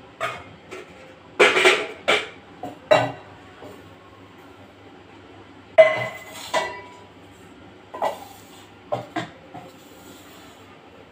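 Stainless steel kitchen containers and utensils being handled and set down, a string of separate clanks and clinks, a few with a brief metallic ring.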